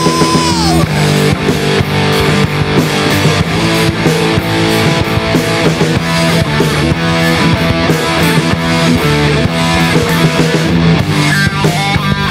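Rock band playing live, an instrumental passage of electric guitar, bass guitar and drum kit with a steady beat; a held high note falls away within the first second.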